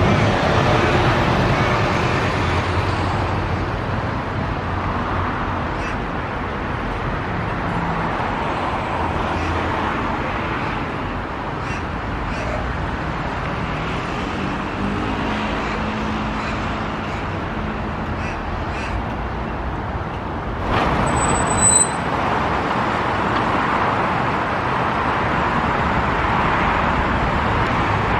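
Little ravens cawing over the steady noise of traffic on a busy road. About three-quarters of the way through, the traffic gets louder and a brief high-pitched squeal cuts in.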